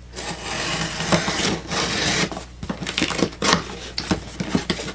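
Cardboard product packaging being opened by hand: long sliding and scraping of cardboard for about two seconds, then a run of short taps and knocks as the box is handled.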